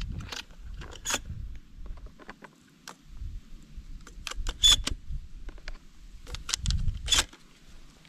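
Shotgun shells clicking and rattling as they are handled and loaded into an open break-action shotgun, with a few sharper metallic clicks among the lighter rattles.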